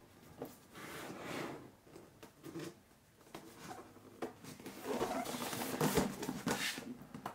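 Hands handling a cardboard laptop box, turning it over and standing it on end: cardboard rubbing and sliding, with light knocks and taps. It is busiest and loudest about five seconds in.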